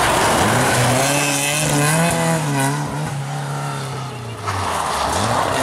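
Rally-prepared Ford Escort engines running hard on a stage. The pitch climbs and drops repeatedly with throttle and gear changes. About four and a half seconds in, the sound cuts abruptly to a second car accelerating.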